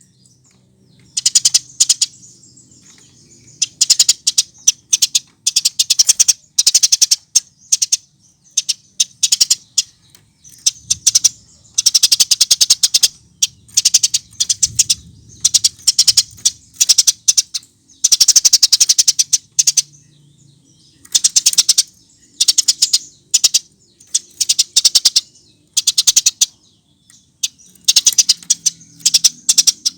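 Eurasian tree sparrow chirping in fast, dense bursts of high chirps, each burst about a second long, with short pauses between them.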